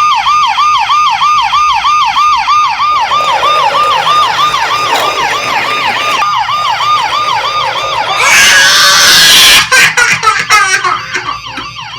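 Electronic siren sound effect from a Robocar Poli remote-control transforming police car toy, a fast wail rising and falling about three times a second. It fades after about eight seconds and gives way to a loud rushing noise and a few clicks near the end.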